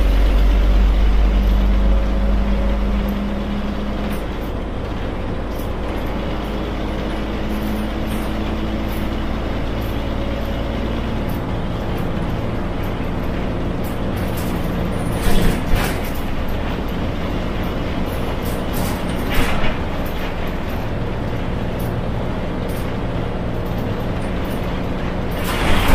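Yangzijiang WG6100NQC4 city bus's front-mounted NQ160N4 engine running under way. The note drops about 3 seconds in and shifts again about 11 seconds in. Three short hisses of air from the air brakes come about halfway through, a few seconds later, and at the very end.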